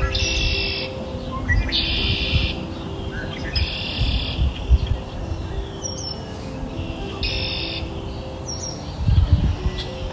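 Birdsong: a buzzy trill under a second long, repeated every couple of seconds, with short high chirps in between, over soft music of held notes.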